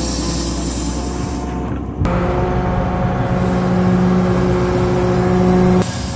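Volvo TD61ACE six-cylinder turbodiesel of an Åkerman H7Mc wheel excavator running steadily while the machine works snow with its bucket. About two seconds in, the sound switches abruptly to the louder engine heard inside the cab, and it switches back near the end.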